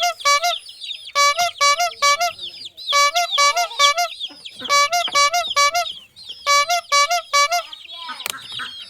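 Playful background music: short, bouncy pitched notes in quick groups, the same little figure repeating throughout, with high chirpy tones above.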